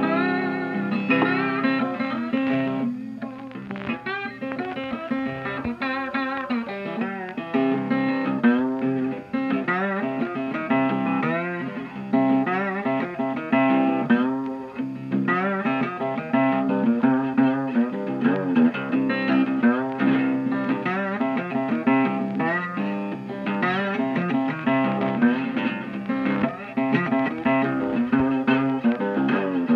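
Instrumental background music led by guitar, its notes often bending in pitch.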